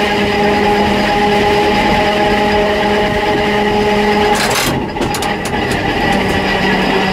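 Old narrow-gauge electric railcar running, heard from the driver's cab: a steady hum of motor and gears with several held tones over wheel and track noise. About four and a half seconds in, a short rush of noise, then the hum drops away for about a second with a few clicks before it returns.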